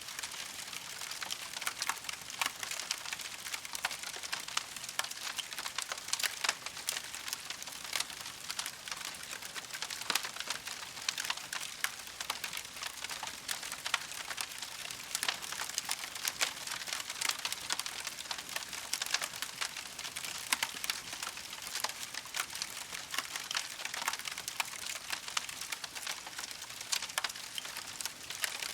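Campfire crackling: a dense, irregular stream of small pops and snaps over a steady soft hiss.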